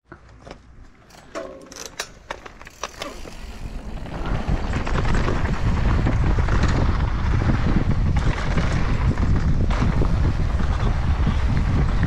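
A few short clicks and rattles over a quiet background, then steady wind buffeting the microphone with a low rumble from about four seconds in.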